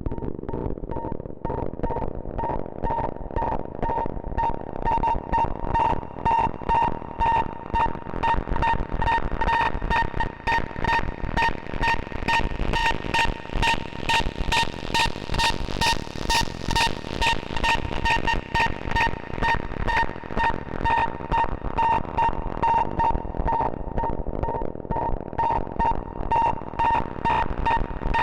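Moog Subharmonicon analog synthesizer playing a fast, pulsing sequenced pattern over a low bass drone. A repeating high note pulses steadily, and the sound grows brighter over the first few seconds.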